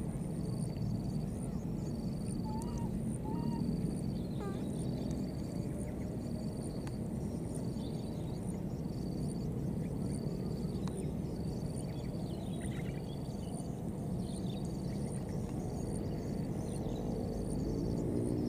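Outdoor ambience: a steady low rumble with a high chirp repeating about once a second, and a few short chirping calls in the first few seconds.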